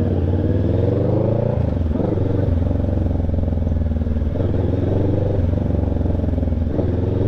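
Kawasaki Ninja 650's parallel-twin engine running through a newly fitted Villain shorty slip-on muffler. Its pitch climbs and drops about two seconds in, then climbs and drops again near the end.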